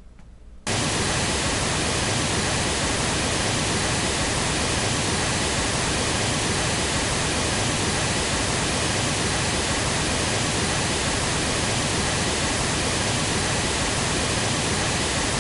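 Steady pink-noise measurement signal from the EASERA SysTune generator, a 1.37 s looped sequence. It switches on abruptly under a second in and then holds an even, hiss-like level.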